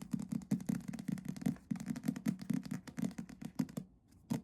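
Package being handled and opened by hand: quick, irregular rustling and crackling of packaging, stopping shortly before the end.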